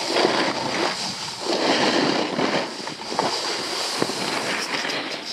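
Skis hissing and scraping over snow on a downhill run, swelling and easing with the turns, with wind rushing on the camera's microphone. A few light clicks near the end.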